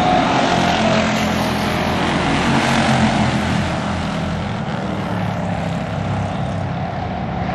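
Stock car racing engines running as a pack of cars passes close by on the oval, one engine note falling in pitch as a car goes past near the start. The sound eases a little after about four seconds as the pack moves away.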